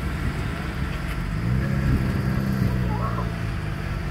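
A car engine running at low, steady revs, swelling louder for about a second and a half in the middle.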